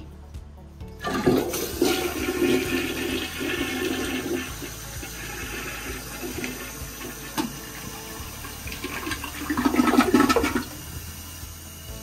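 Toilet flushing: a sudden rush of water about a second in that slowly eases off, then a second loud surge of water near the end.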